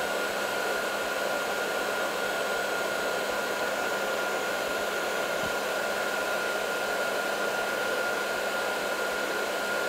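Heat gun running steadily on high with a nozzle attachment: an even rush of fan and airflow with a steady high whine.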